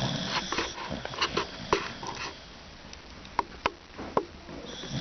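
Sleeping dog snoring loudly: a noisy breath at the start, then several short, sharp snorts through the nose and mouth, with another noisy breath beginning near the end.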